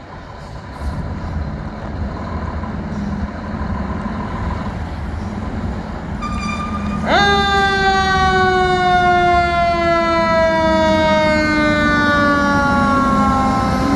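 Fire engine pulling out with its engine rumbling. About halfway through its siren sweeps sharply up in pitch, then winds slowly down.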